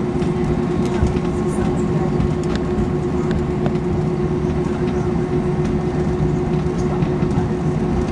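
Steady airliner cabin noise: a continuous engine hum with one constant mid-pitched tone over a low rumble, and a few small clicks.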